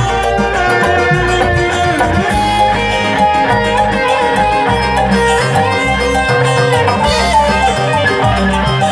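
Live dangdut band playing an instrumental break, with an electric guitar lead playing sustained, bending notes over bass and rhythm.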